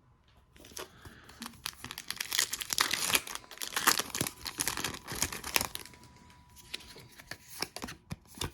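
Foil Pokémon booster pack wrapper being torn open and crinkled: a dense crackle lasting about five seconds, then a few lighter rustles.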